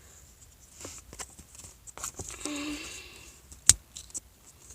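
Light taps and rustles of handling a homemade plastic switchblade, then one sharp loud click a little before the three-quarter mark.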